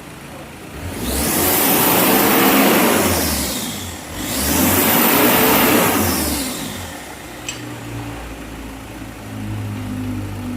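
A vehicle engine revved twice, each time climbing and falling back over about three seconds, then settling to a low steady hum.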